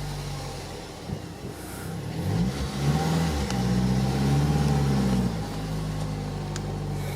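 2010 Mazdaspeed 3's 2.3-litre turbocharged four-cylinder engine running. About two seconds in the revs rise and stay up for a couple of seconds, then drop back to a steady lower note just past five seconds, as the manual car is driven off.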